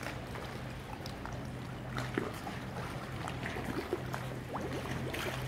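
Canal ambience: water trickling and lapping, with a steady low hum underneath.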